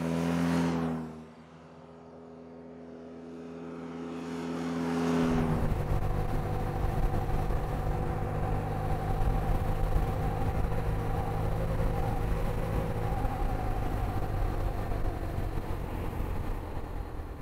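Motorcycle engine: a loud swell as it goes by in the first second, then quieter and slowly building, and from about five seconds in running steadily with a low road and wind rumble, as heard while riding.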